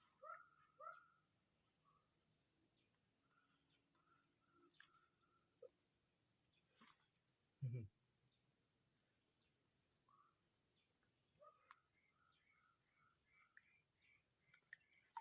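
Insects in a steady high-pitched chorus, with short faint chirps here and there and a brief low thud about halfway through.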